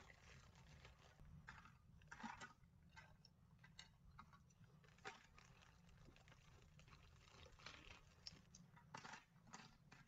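Near silence, broken by a few faint, scattered clicks and rustles as small stones are taken from a plastic bag and set down on the fountain's trays.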